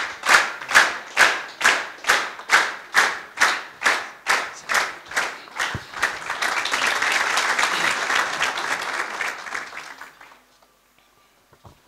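Audience clapping together in a steady rhythm, a little over two claps a second. About six seconds in it breaks into loose, unsynchronised applause, which dies away at around ten seconds.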